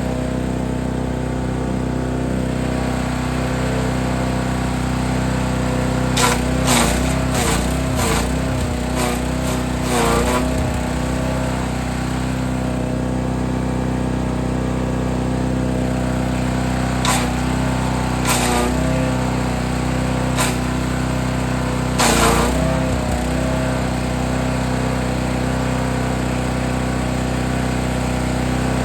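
Forest Master FM8DD wood chipper's engine running steadily while branches are fed in, with bursts of crackling and snapping as the wood is chipped, twice in clusters of several seconds. The engine's pitch dips as it takes the load of each branch.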